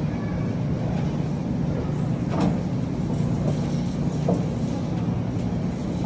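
Steady low machine hum with a few faint knocks, one about two and a half seconds in and another about four seconds in.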